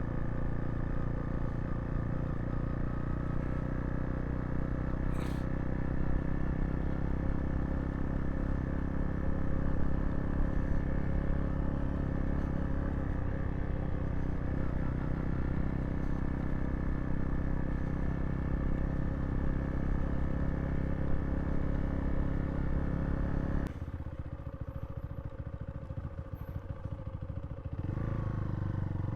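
Zontes T2 350's single-cylinder engine running steadily under way. About twenty-four seconds in it drops off for a few seconds, then picks up again near the end.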